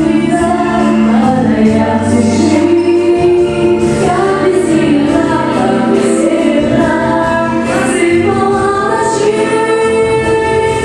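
Music with a choir singing, several voices holding long notes together at a steady loud level.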